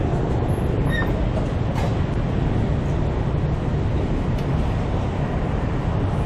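Steady rumble of motor traffic and road noise, even and unbroken, strongest in the low end.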